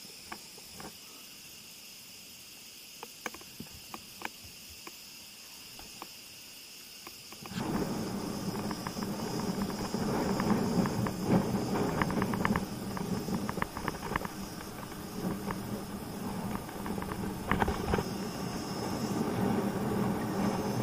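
Insects chirring steadily, with a few light clicks. About seven seconds in, wind buffeting and rumbling on the microphone takes over, along with tyre noise and rattling from a bicycle rolling down an asphalt road.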